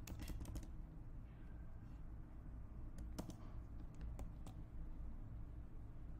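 Computer keyboard keystrokes and mouse clicks: a quick cluster of clicks right at the start, then a few single clicks between about three and four and a half seconds in, over a low steady hum.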